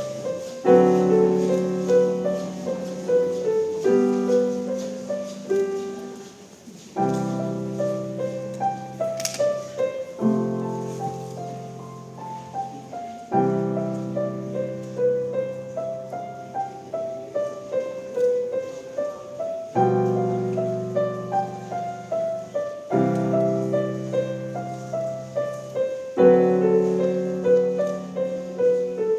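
Bösendorfer grand piano playing a gentle classical piece: a flowing melody over low chords that are struck anew about every three seconds.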